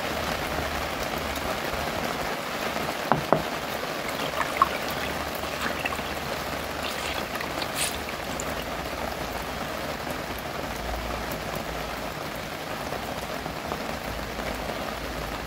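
Steady patter of falling water, with a few light knocks about three seconds and four and a half seconds in.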